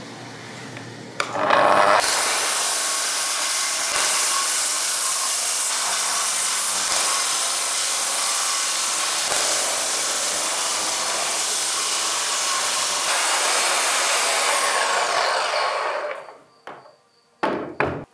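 Festool circular saw starting up on its guide rail and cutting along a panel of oak boards for about twelve seconds. The blade's whine then falls as it winds down, and two sharp knocks follow near the end.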